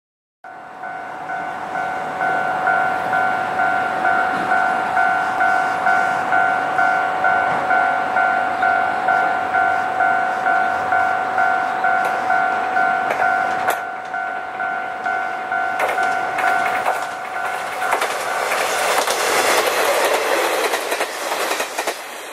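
An electronic level-crossing warning bell rings steadily in a two-tone ding-ding, about two strikes a second. About three-quarters of the way through it stops, and a Kanto Railway KiHa 2400 + KiHa 2300 diesel railcar train passes close by, its engine and wheel noise swelling and then fading.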